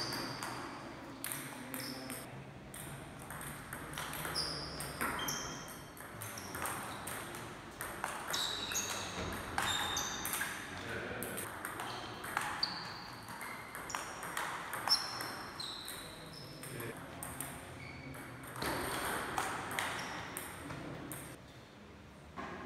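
Table tennis rally: the celluloid-style plastic ball clicking repeatedly off rubber-faced rackets and the table top. Short high squeaks of sports shoes on the hall floor come between the hits.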